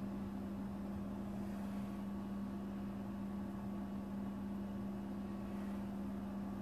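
A steady low hum at one pitch over a faint hiss, with nothing else standing out.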